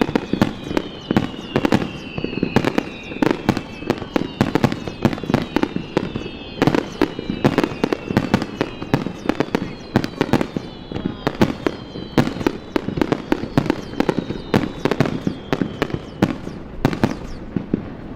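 Aerial fireworks shells bursting in rapid succession, a dense run of bangs and crackles, with several high whistles falling in pitch over the barrage.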